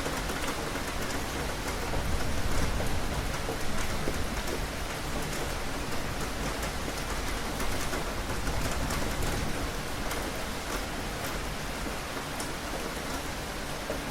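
Steady rain falling, with many individual drops ticking against a surface over a low rumble.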